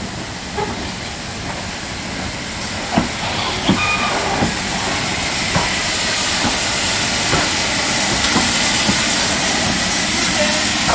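Steam locomotive letting off steam: a hiss that swells about halfway through and then holds steady, with a few short knocks in the first half.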